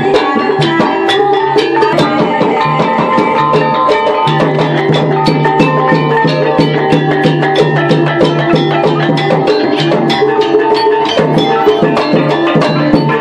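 Percussion music: drums and tuned struck instruments playing many quick strikes over held ringing notes, with a steady low note.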